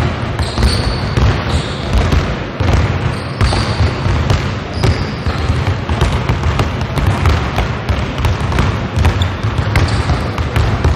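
Several basketballs being dribbled at once by a group of players on a hardwood gym floor: a dense, continuous run of overlapping bounces.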